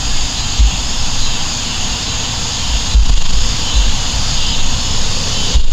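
Steady outdoor background rumble with irregular low thumps, and one sharp click near the very end.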